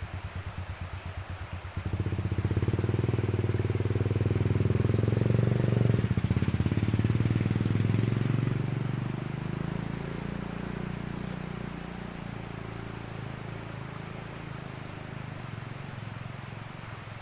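Small engine of a passing vehicle: it grows louder about two seconds in, is loudest around six seconds, where its pitch drops, then fades away.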